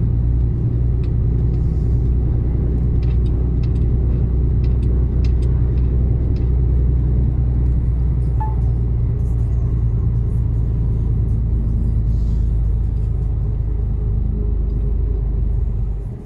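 Mercedes-Benz Actros truck engine pulling steadily on a mountain road, a low, even drone heard from inside the cab with a few faint clicks and rattles. The drone eases off near the end.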